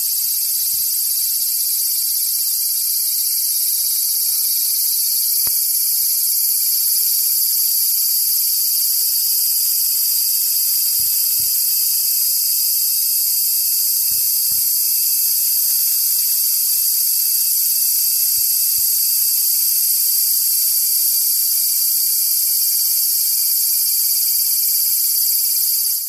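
Cicada singing close by: one loud, steady, high-pitched buzz that does not break.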